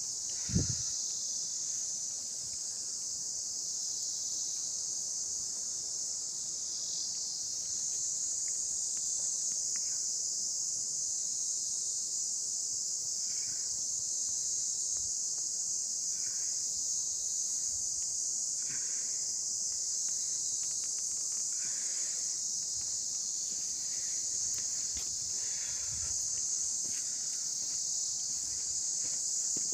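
Steady, high-pitched drone of insects calling in the forest, unbroken throughout. A single thump comes about half a second in, and faint short scuffs recur every few seconds.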